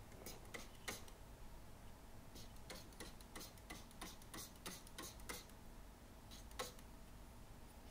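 A trigger spray bottle of stove-glass cleaner squeezed again and again: about a dozen short, faint spritzes at an uneven pace, with a longer gap before the last one near the end.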